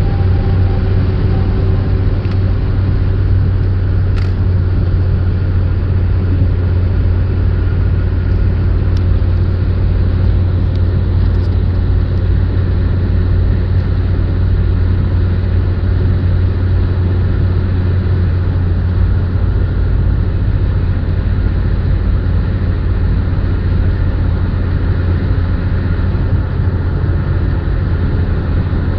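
Steady low drone of engine and tyre noise heard inside a car cruising at motorway speed, with a few brief clicks in the first dozen seconds.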